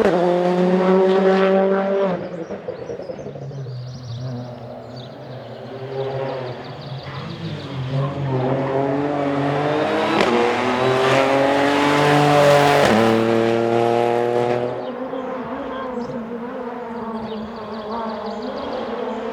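Rally car engines at racing revs on a closed stage. One fades out about two seconds in. Another builds, climbs in pitch through its gears and is loudest around ten to fourteen seconds in, then falls away.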